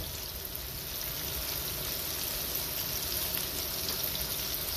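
Breaded cauliflower pieces deep-frying in hot oil: a steady sizzle with faint scattered crackles.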